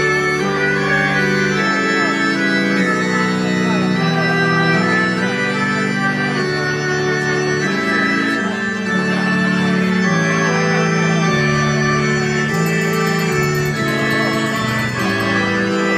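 Slow processional music of long held chords that change step by step, organ-like in sound.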